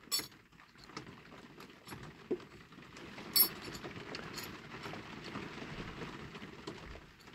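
Small metal clicks and faint rubbing as a metal baseplate is pressed and worked into a diecast toy car body during a trial fit. The sharpest click comes about three and a half seconds in.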